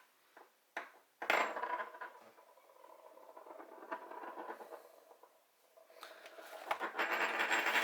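Heavy metal arcade token dropped onto a hard surface, ringing about a second in, then a metallic rattle that grows louder near the end, like a coin spinning down.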